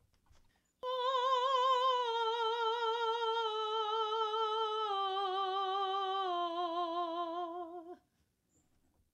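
A woman's singing voice, played back from a recording, sings a five-note descending scale starting about a second in. Each sustained note carries a steady, even vibrato of about five wobbles a second, the consistent vibrato across changing pitches that the exercise aims for. The tone cuts off about eight seconds in.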